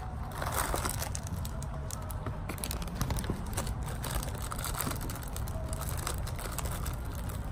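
Snack packaging being opened by hand: a cardboard biscuit box torn open, then a foil wrapper crinkled and pulled apart, in many small crackles and rustles over a steady low background rumble.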